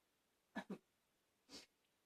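Near silence with a few faint, short breaths from a person with a barking cough: a quick double catch of breath about half a second in and a softer one about a second later.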